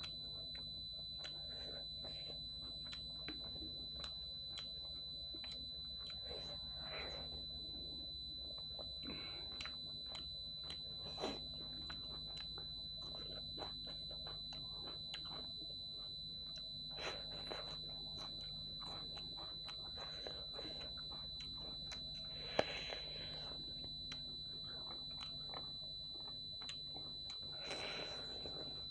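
Close-up eating sounds of dhido and chicken curry eaten by hand: many small wet clicks and smacks of chewing and fingers in food, with a sharper click about eleven seconds in and the loudest near two-thirds of the way. Under it runs a steady high-pitched electronic tone and a low hum.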